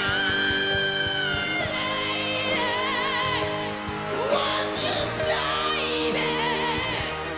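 A solo voice sings long held notes with strong vibrato through a microphone, over a karaoke backing track of sustained chords.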